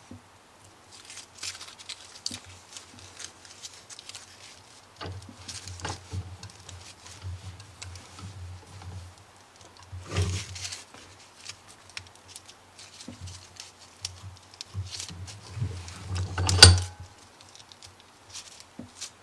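Glued-up wood pen blank being handled and clamped in a vise: scattered light clicks and knocks, with a louder knock about ten seconds in and another near the end.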